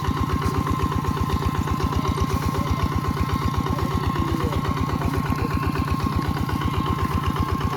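Mini tractor engine running steadily with an even, rapid chugging beat, and a thin steady whine above it.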